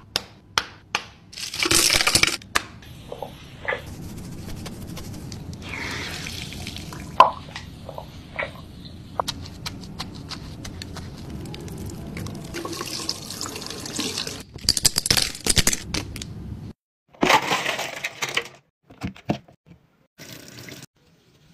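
Wet makeup brush scrubbed on a textured silicone cleaning mat in soapy water, with a few sharp clicks in the first seconds and then a steady wet scrubbing wash. After a break of about 17 s, a tap runs in short spells as a brush is rinsed under it.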